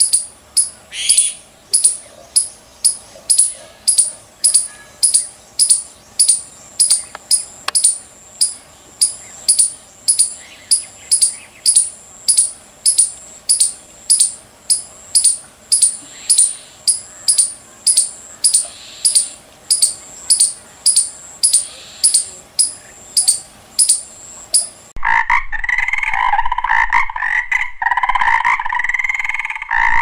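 A squirrel calling with short, sharp, high-pitched chirps, about two a second in a steady run. In the last few seconds a frog takes over with loud, rapidly pulsing croaks.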